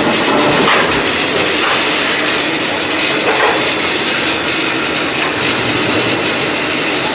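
Machinery running with a loud, steady hissing noise and no clear rhythm.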